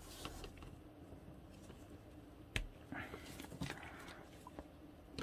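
Faint handling sounds of a plastic Marvel Legends action figure being posed by gloved hands: scattered small clicks and soft rustles, with one sharper click about two and a half seconds in.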